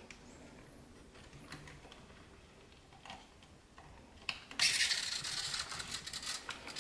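Hands handling a plastic-chassis RC car and its wiring: faint clicks and taps, then a louder dense crackling rattle beginning about four and a half seconds in that cuts off abruptly.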